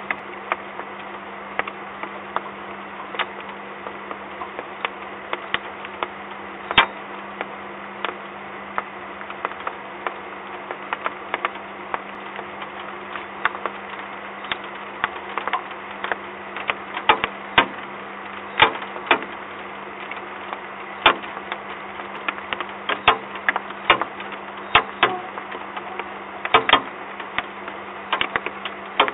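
Raindrops ticking irregularly on hard surfaces close to the microphone, coming more often and louder in the second half, over a steady low electrical hum.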